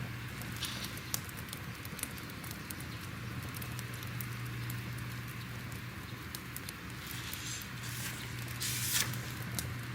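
Crackling fire: irregular sharp pops and snaps over a soft hiss, with a steady low hum beneath. A brief louder rustle comes about nine seconds in.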